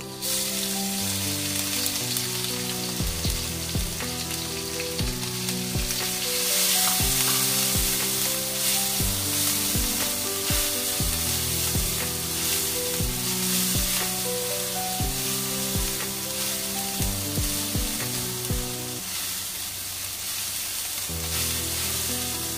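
Pounded garlic and ginger sizzling as it drops into hot oil in a wok, then frying steadily while being stirred, with repeated knocks of the spatula against the wok from about three seconds in.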